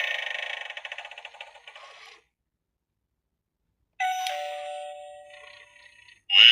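Small speaker of a knockoff Gemmy eyeball novelty doorbell: a sound clip fades out and stops about two seconds in. After a silent gap, a two-note ding-dong doorbell chime starts about four seconds in, a higher note and then a lower one, fading away. A louder clip starts right at the end.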